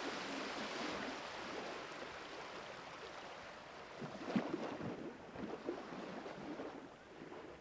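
Water ambience: a steady rushing wash of water noise, with a few sharper pops and crackles around four to six seconds in, dying down near the end.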